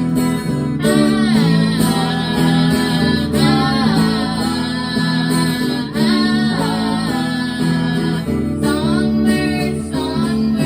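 A singer performing a slow song over acoustic guitar, with held guitar chords under a sung melody that slides between notes.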